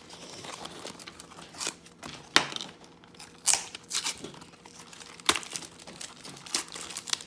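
Packaging being handled and pulled open to get a 2x2 puzzle cube out of its box: irregular crinkling with a few sharper cracks.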